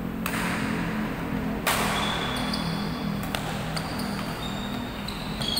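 Badminton rally: rackets hit a shuttlecock several times, with sharp smacks that ring on in a large echoing hall, and short high squeaks from shoes on the court floor. A steady low hum runs underneath.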